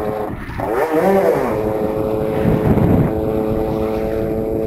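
Small two-stroke supermoto motorcycle engine running under way, recorded from the rider's helmet, with a quick rise and fall in revs about a second in.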